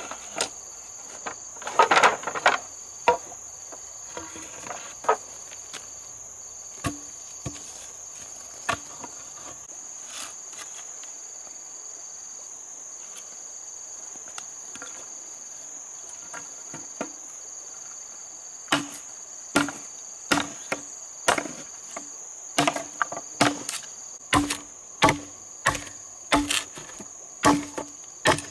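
Insects, crickets or the like, buzzing steadily at a high pitch, with a pulsing chirp over the first half. A few separate knocks come in the first half. From about two-thirds of the way through, regular knocking strikes follow, roughly one every 0.7 seconds, as of hammering or chopping.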